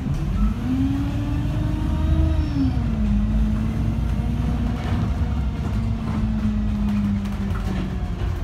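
Bus engine pulling away: its pitch rises, holds, then drops about two and a half seconds in as the gearbox shifts up, before running steadily under a low rumble.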